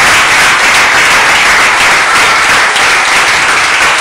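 Audience applauding loudly: dense, steady clapping from many hands.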